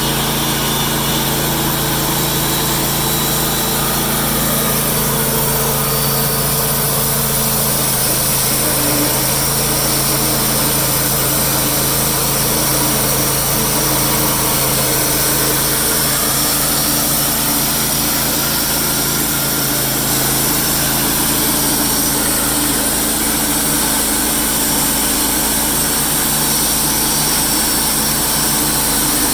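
Wood-Mizer LT15 portable band sawmill running steadily while milling a deodar cedar log, a constant engine hum with a high hiss over it. The low hum shifts in pitch about three-quarters of the way through.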